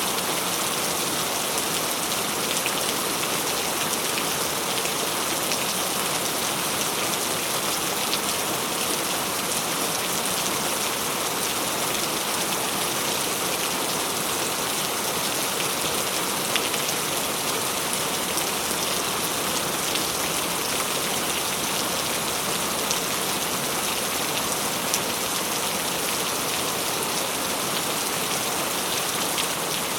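Heavy rain falling steadily: a dense, even hiss with many sharp individual drop hits.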